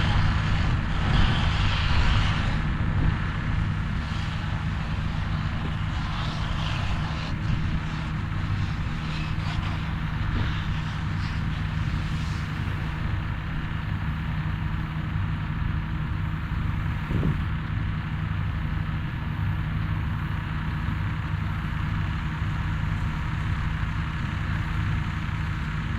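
A vehicle engine running steadily, a low even drone, with a few brief rustling noises in the first dozen seconds.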